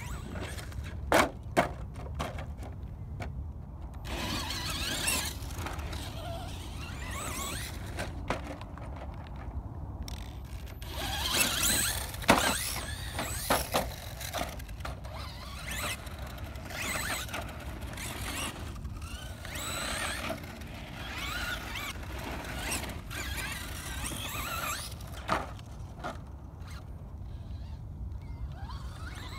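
Brushless electric motor and gears of a Traxxas Slash 2WD RC monster truck whining up and down in pitch as the truck is driven over dirt jumps, with several sharp knocks from landings and hits, the loudest about twelve seconds in.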